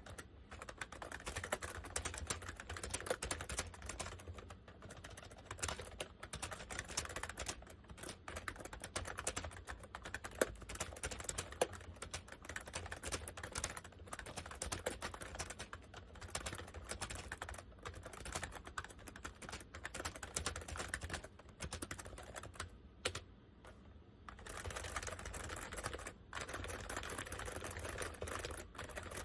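Continuous typing on a Honeywell 101WN/WT keyboard, a cheaply built board with what appear to be dye-sublimated PBT keycaps: a rapid run of key clacks, easing into a brief lull about two-thirds of the way through before picking up again. A steady low hum runs underneath.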